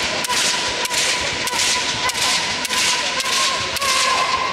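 Bamboo kendo shinai cracking against each other and on armour, sharp cracks about every half second, each echoing briefly in a large hall, over a steady high whine.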